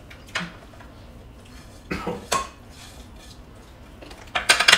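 Cutlery clinking against dishes at a meal table: a few separate clinks, then a quick rattle of several clinks near the end, the loudest of them.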